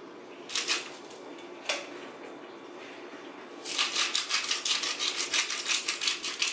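Hand-twisted salt grinder being turned, a rapid, even run of crisp grinding clicks that starts about three and a half seconds in. Two light clinks of kitchenware come earlier.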